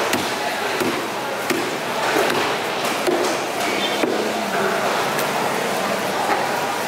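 A knife slicing fish on a wooden chopping block, with several sharp, irregular knocks as the blade meets the block, over a steady background of voices and noise.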